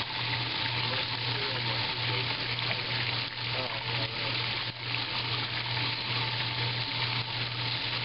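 1955 Blackstone washing machine running with a full tub: water churning and splashing around the agitator, over a steady low hum.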